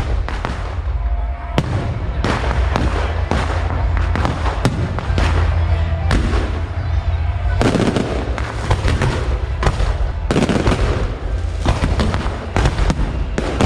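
Fireworks going off in quick succession: dense, overlapping bangs and crackles with no break, over a constant low rumble.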